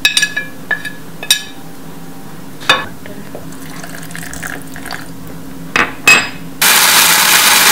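A metal spoon clinks against a ceramic plate several times. About six and a half seconds in, an electric blender starts abruptly and runs loud and steady, grinding soaked chilies, Bengal gram, garlic and spices into a chutney paste.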